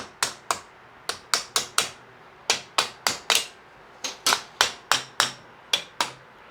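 Ratchet wrench clicking in short runs of a few sharp clicks, about four a second, with brief pauses between strokes, as it turns the threaded rods of a motorcycle shock spring compressor.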